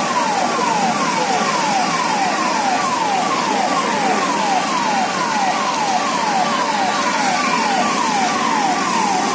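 Emergency vehicle siren in fast yelp mode: a rapid, evenly repeating falling wail, about three sweeps a second.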